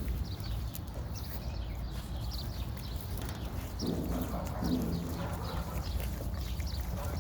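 Animals at feeding: repeated short high chirps throughout, and a short lower call about four seconds in, over a steady low rumble.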